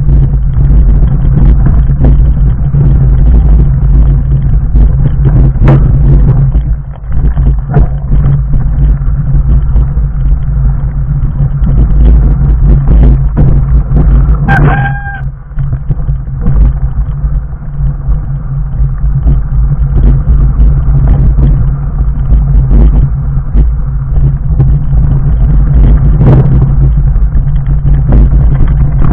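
A fat bike's 4-inch off-road tyres rumbling over a loose rocky trail on a descent, with the bike rattling and frequent knocks from stones. A brief high squeal sounds about halfway through.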